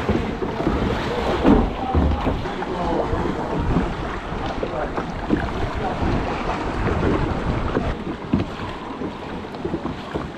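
Sea water sloshing and splashing around a sit-on-top kayak as it is paddled through choppy water, with wind buffeting the microphone.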